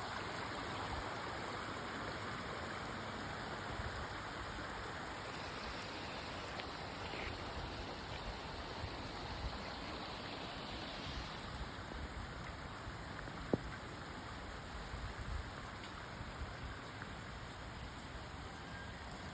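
Steady rush of rainwater, with one sharp tap about two-thirds of the way through.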